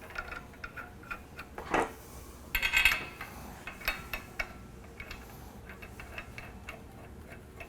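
Steel bolts and nuts clinking and scraping as they are put in by hand and spun finger tight in a lug butterfly valve's bolt holes. The light metallic clicks are scattered, with a busy cluster about three seconds in.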